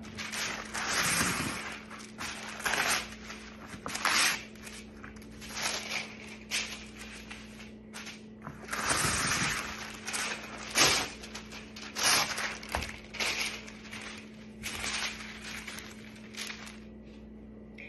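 Reynolds Cut-Rite wax paper being pulled out and smoothed across a tabletop, crinkling and rustling in irregular bursts.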